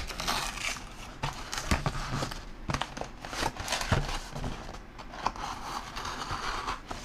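Cardboard shipping box being handled and turned over, then its cardboard cut open with a folding knife near the end: irregular rustling and scraping with small clicks and knocks.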